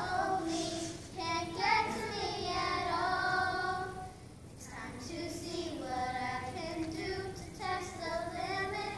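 Children singing a song together in sustained sung notes, breaking off briefly about halfway through before carrying on.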